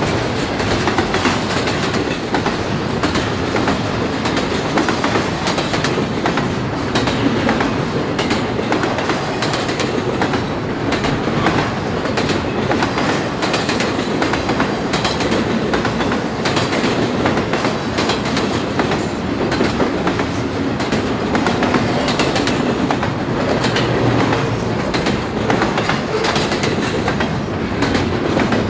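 Double-stack intermodal container cars of a Canadian Pacific freight train rolling past. There is a steady rumble of wheels on rail with frequent clicks and clatter as the wheels cross rail joints.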